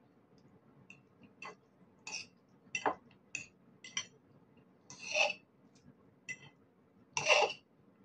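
Metal fork clinking and scraping against a ceramic bowl while eating noodles: about a dozen short sharp taps, with two longer, louder sounds about five seconds in and near the end.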